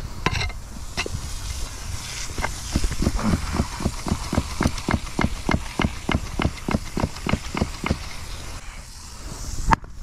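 Steel pick mattock striking the edge of a sawcut concrete driveway slab in quick repeated chops, about three a second, with a single louder knock near the end.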